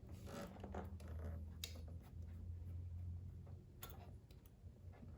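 A few faint, sharp clicks of small metal hand tools and a feeler gauge at the engine's valve rocker during a valve-lash adjustment, over a low steady hum.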